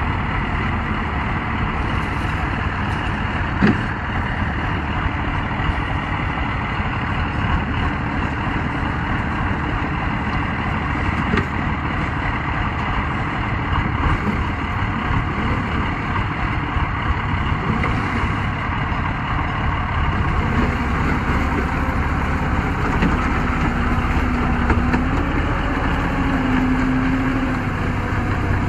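Tracked all-terrain vehicle's engine running under load as the vehicle works through broken river ice, with a single sharp knock about four seconds in. In the last several seconds the engine note climbs and shifts in steps as it revs harder to haul the vehicle up onto the ice.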